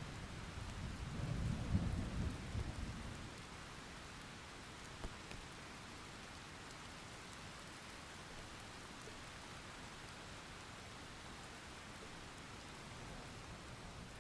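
Steady rain with a rumble of thunder that swells in the first few seconds and dies away, leaving the even hiss of rainfall. A new low rumble begins near the end.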